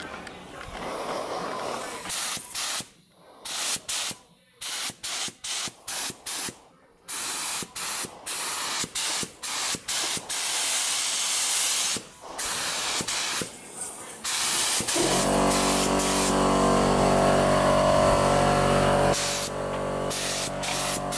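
Paint spray gun hissing in many short bursts as its trigger is pulled and released, spraying a motorcycle engine's generator cover. About fifteen seconds in, a louder steady hum joins the hiss and runs for several seconds.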